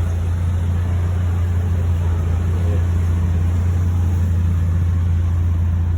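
Steady low mechanical hum, even in level throughout, with no clicks or knocks standing out.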